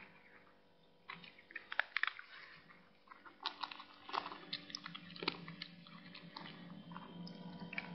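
A cat chewing and tugging at a length of twine: irregular crackling clicks, starting about a second in.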